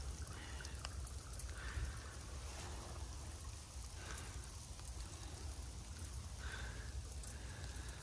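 Light rain pattering on the leaves of the forest canopy, a soft even hiss with scattered small drips, over a steady low rumble.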